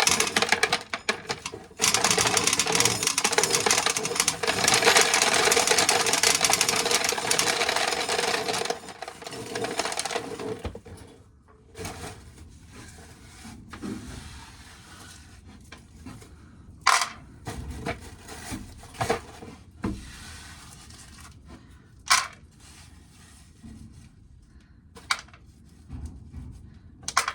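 Dry field corn being shelled: a dense rattle of kernels for the first eight seconds or so, then scattered sharp clicks of single kernels and cobs dropping.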